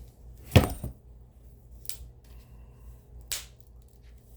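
Records and cardboard packaging being handled: one sharp knock about half a second in, then a few lighter clicks.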